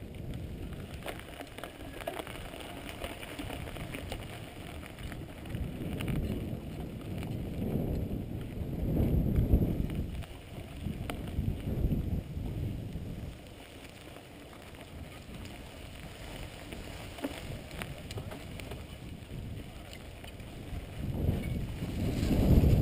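Mountain bike riding over a sandy dirt trail: wind rumbling on the microphone, with the small rattles and ticks of the bike over rough ground. The rumble swells louder about eight seconds in and again near the end.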